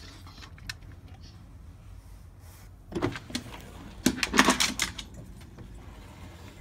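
Dogs scuffling in snow: two bursts of crunching and scraping noise, a short one about three seconds in and a longer, louder one about four seconds in.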